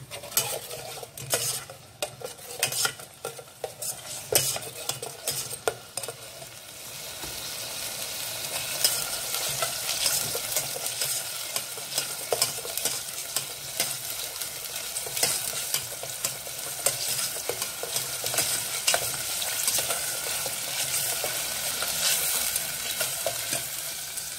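Spice paste of onion, garlic, lemongrass, galangal and ginger frying in hot oil in a stainless steel pot, stirred with a spatula that scrapes and knocks against the pot. The knocks are frequent for the first six seconds or so; about seven seconds in, the sizzle grows louder and steadier, with only occasional knocks.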